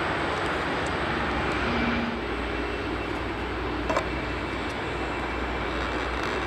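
Steady jet engine noise: first a Boeing 747 taxiing, then, after a change about two seconds in, a low rumble from an Airbus A350-900's Rolls-Royce Trent XWB engines as it flies in on final approach with its landing gear down. A short click about four seconds in.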